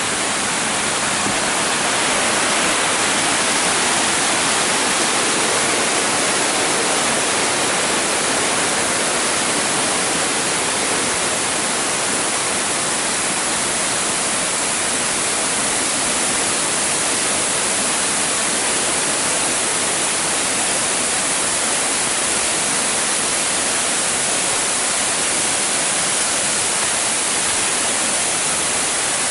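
Waterfall pouring steadily: a constant, unbroken rush of falling water.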